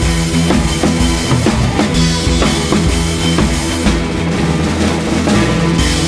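Background music with a steady drum-kit beat over held bass and chord notes.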